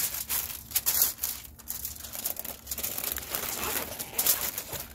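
Heavy-duty aluminium foil crinkling and crumpling irregularly as hands fold and press it around a rack of ribs to wrap it.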